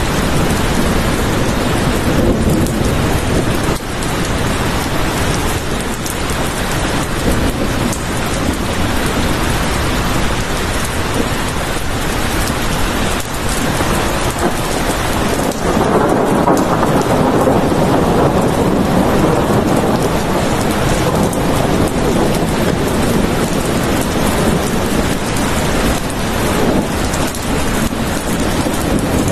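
Steady heavy rain, with a low rumble of thunder swelling about halfway through and fading slowly.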